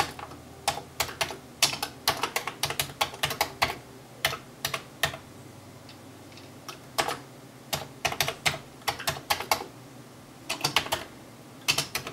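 Typing on a Commodore 64 keyboard: runs of quick keystroke clicks in bursts, with short pauses between them.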